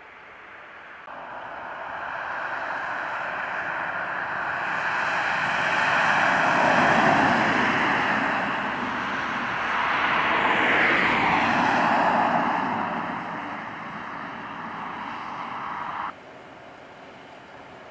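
Emergency vehicles driving past close by on a road, their tyre and engine noise swelling as each one passes, with two loud peaks, one after the other. The sound cuts off suddenly near the end.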